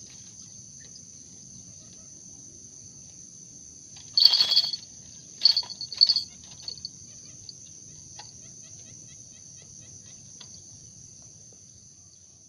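Steady high-pitched trilling of insects (crickets or cicadas) throughout, broken by two loud short bursts about four and five and a half seconds in, with faint, quick repeated chirps in the second half.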